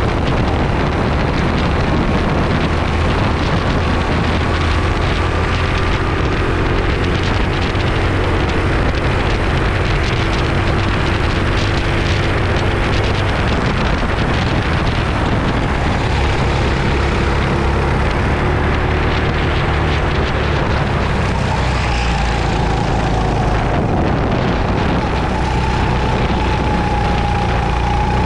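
Racing go-kart engine running steadily under load, heard onboard with wind and road noise. A faint whine dips and rises in pitch now and then as the throttle changes through corners.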